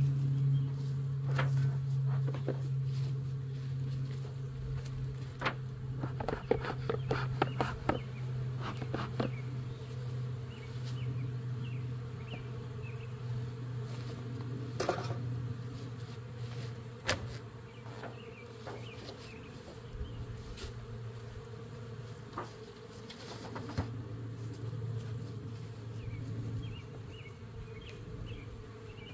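Honeybees humming steadily around an open beehive, with a cluster of sharp knocks and clicks about six to nine seconds in and a couple of single clicks later, as wooden hive covers are handled.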